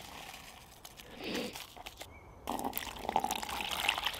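Hot water being poured into a cup to make instant coffee, starting about two and a half seconds in.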